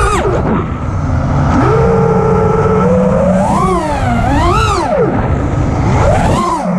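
FPV quadcopter's brushless motors whining, the pitch rising and falling sharply several times with the throttle.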